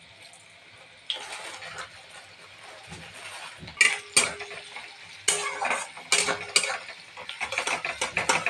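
Metal spatula scraping and clattering against a metal kadhai as chopped onions and whole spices frying in oil are stirred, over a sizzle. The sizzle comes in about a second in, and the sharp scraping strokes start about four seconds in and repeat many times.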